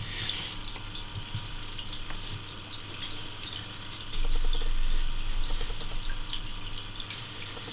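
Hands pressing and smoothing granular aquarium substrate in a plastic, netting-lined planter basket: faint crackling of the grains over a steady water-like hiss, with a louder stretch of handling noise about four seconds in.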